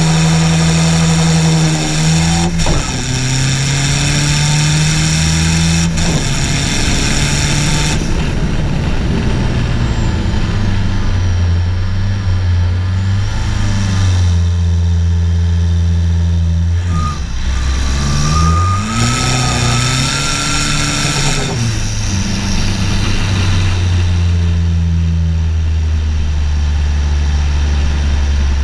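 Car engines running and idling, their pitch shifting in steps. Past the middle, one engine revs up and back down, with a thin whine that rises as it revs.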